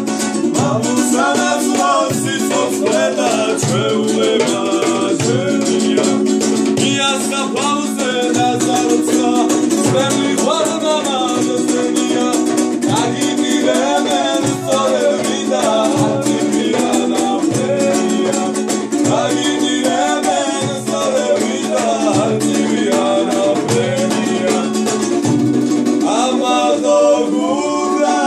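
Georgian panduri strummed in a fast steady rhythm, with a man's voice singing a folk melody over it.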